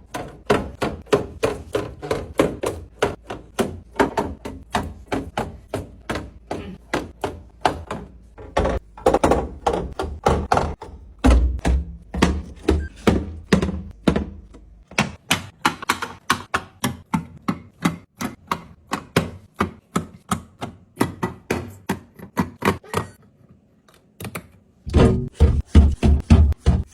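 Percussive background music with a steady beat of wood-block-like clicks and low drum thumps. It breaks off briefly near the end and comes back louder.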